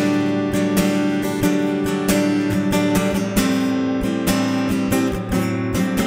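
Cutaway acoustic guitar strummed in a steady rhythm, chords ringing, without any singing.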